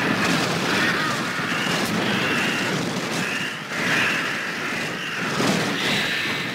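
Anime sound effect of a large flock of crows swooping in to attack: a dense rushing noise of wings with short repeated cries over it, one every half second or so.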